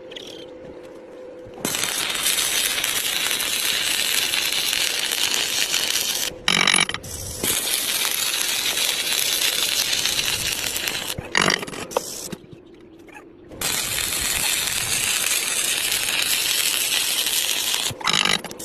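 Stick-welding arc crackling steadily, struck three times and broken off twice in short pauses, with a few sharp clicks in the gaps.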